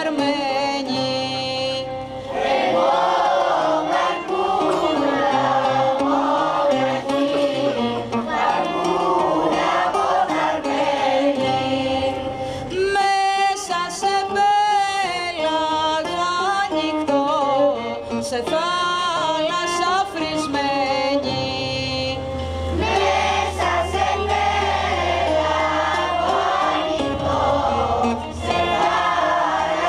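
Mixed choir of women, children and men singing a song together.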